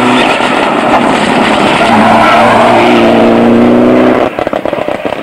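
Mitsubishi Lancer Evolution rally car coming past at full throttle, its engine note loud and held high and steady. About four seconds in the note drops away as the throttle is lifted, with a rapid run of crackling exhaust pops.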